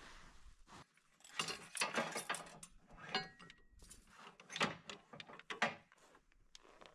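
Metal clanks, knocks and rattles from a skid-steer trencher attachment being handled, a scattered series of clinks with a brief metallic ring about three seconds in.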